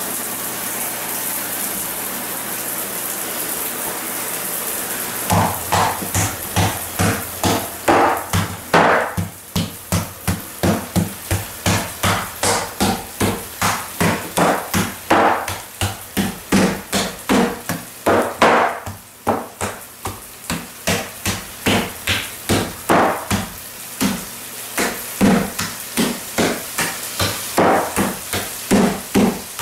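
A yellow plastic toy hammer pounding ripe bananas in a bathtub, about two strikes a second, with a short pause a little past two thirds through. Before the strikes begin, the first five seconds hold a steady hiss.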